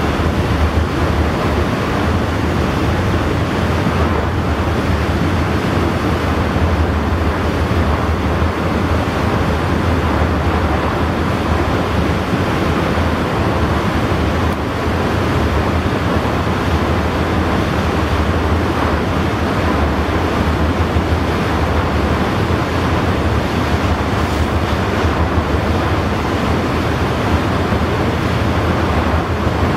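Steady wind buffeting the microphone over the wash of the sea, with a constant low rumble and no distinct engine tone standing out.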